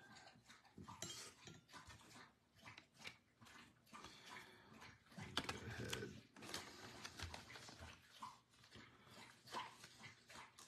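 Faint, irregular clicks, taps and rustling of trading cards and plastic card holders being handled and loaded.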